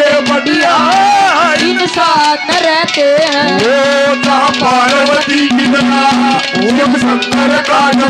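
Live Haryanvi ragni folk music: a hand drum beats steadily under a melody line that bends and slides in pitch, over a recurring steady low note.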